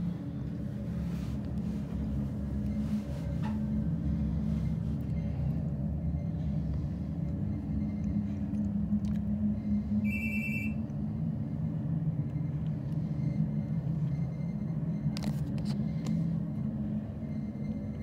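Otis hydraulic glass elevator car descending, heard from inside the car as a steady low hum that grows slightly louder a few seconds in. A short electronic beep sounds about ten seconds in.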